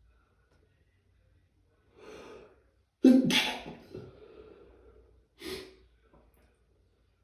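A person sneezing from allergies: a sharp intake of breath about two seconds in, then one loud, sudden sneeze about a second later that trails off, and a short breath a couple of seconds after that.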